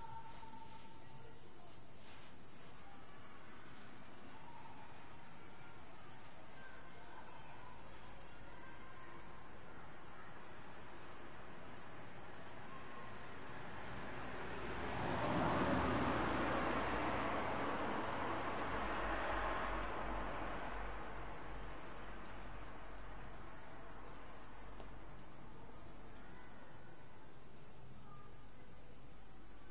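Crickets chirring in a steady, high-pitched chorus. About halfway through, a soft rushing sound swells for several seconds and fades away.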